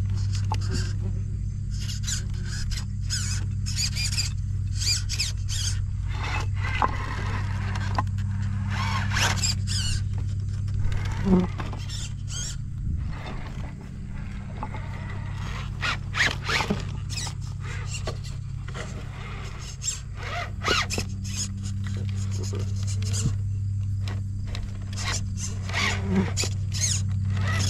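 RC rock crawler driven on its Hobbywing Fusion SE brushless motor, whining and squealing in short irregular spurts as it crawls, with scraping, all over a steady low hum.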